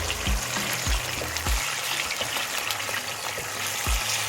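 Coconut-cream curry with cod simmering in a pan, a steady fine bubbling sizzle, with four short dull thumps.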